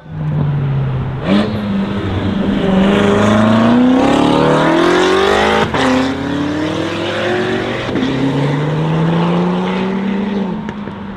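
Tuned BMW M6 with a GT3-style widebody accelerating hard away through the gears, engine pitch climbing steadily and dropping at an upshift about halfway through and again near the end.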